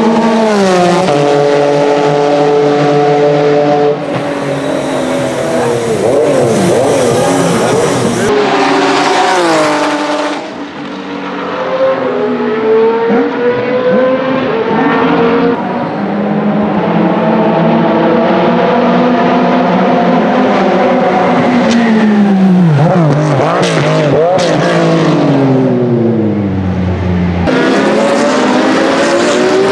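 Porsche 996 GT3 RS and RSR race cars' 3.6-litre flat-six engines at racing speed, across several edited passes. The revs fall in steps through downshifts under braking, then climb hard as the cars accelerate away, and the pitch drops as cars go past. Near the end, several race cars are heard together.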